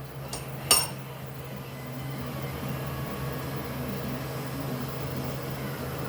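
A single sharp metallic clink a little under a second in, over a steady low mechanical hum.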